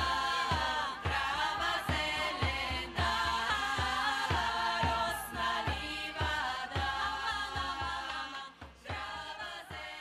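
Background music: a group of voices singing in harmony over a steady drum beat of about two strokes a second, fading out near the end.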